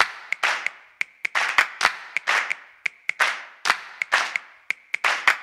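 Black felt-tip marker drawing on paper pinned to an easel: quick, irregular scratchy strokes and taps, about four a second, with a faint squeak in each stroke.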